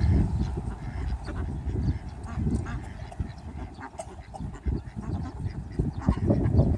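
A flock of white domestic ducks quacking, many short calls scattered through, over an uneven low rumble.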